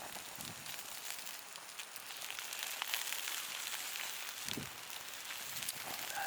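Wood fire crackling in a fire pit: a steady hiss with many small sharp pops scattered throughout.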